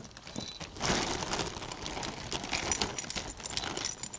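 A jumble of costume jewelry (earrings, beads, chains) clinking and rattling in rapid small clicks as it is handled and pulled apart, louder from about a second in.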